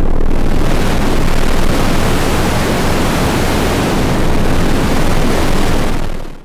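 Loud steady hiss of static with no tone in it, spread evenly from low to very high pitch, cutting off abruptly at the end: the noise of an analog FPV video receiver's audio channel.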